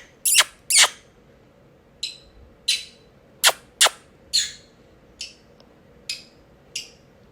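Green-cheeked conure making about ten short, sharp, high kissy squeaks, each dropping quickly in pitch, spaced irregularly with quiet gaps between.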